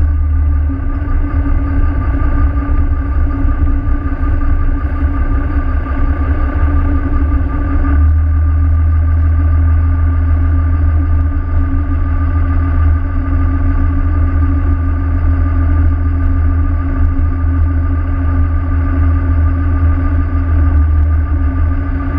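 Pilot boat's engine running steadily under way through broken ice: a loud, constant low rumble with a steady hum above it.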